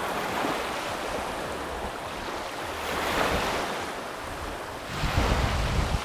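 Small waves washing onto a sandy bay shore, with wind buffeting the microphone about five seconds in.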